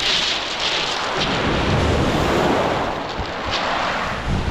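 Waves breaking and washing over a shingle beach, with wind buffeting the microphone in a low rumble.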